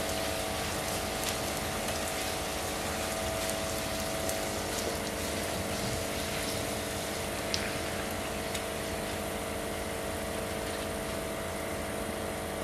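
Papri, a thin disc of maida dough, deep-frying in hot oil: a steady sizzle and bubbling of the oil, with a steady hum underneath and a few faint ticks.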